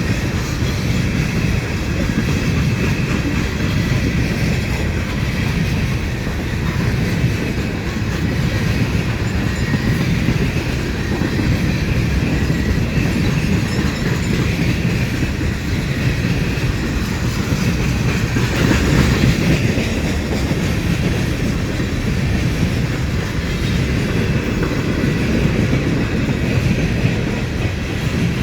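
Railroad cars rolling past, their wheels clattering over the rails in a steady, loud rumble.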